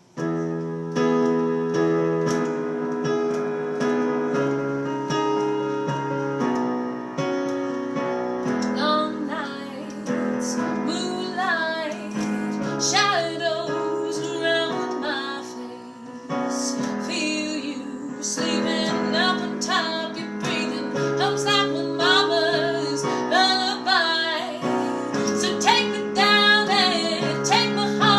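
A jazz song played on piano, chords from the first moment, with a woman singing the melody from about nine seconds in.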